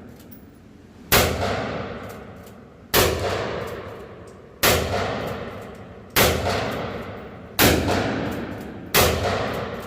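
Kel-Tec KSG 12-gauge pump shotgun fired six times in steady succession with mini-shells, about one and a half seconds between shots, each shot followed by a long fading echo.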